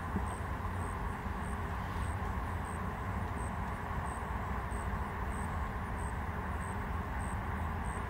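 Steady outdoor background rumble and hiss, with a faint high-pitched chirp repeating about three times every two seconds.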